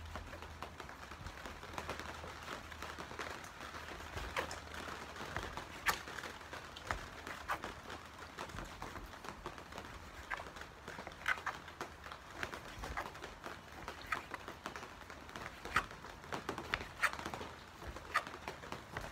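Kitchen knife slicing a squid tube into rings on a chopping board: irregular soft clicks and knocks as the blade meets the board, over a faint low hum.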